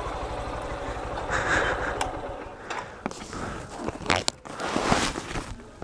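Close handling noises: irregular scrapes, rustles and knocks. A motorcycle engine idles low for about the first second.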